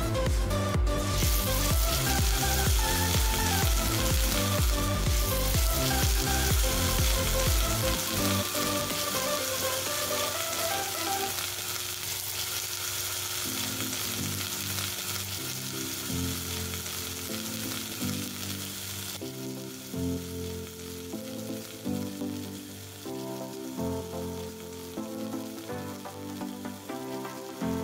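Pork chops sizzling as they fry in shallow oil in a nonstick pan, a steady hiss. Background music plays under it, its pulsing beat dropping out about eight seconds in.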